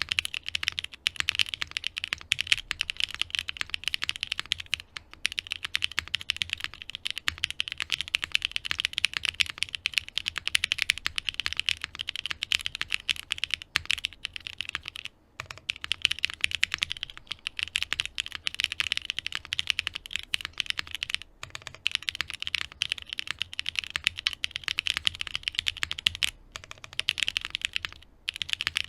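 Fast continuous typing on a Vertex Arc60 mechanical keyboard with Gateron switches and GMK keycaps: a dense clatter of keystrokes broken by a few short pauses.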